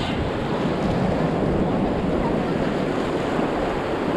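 Steady surf washing onto the beach, with wind noise on the microphone.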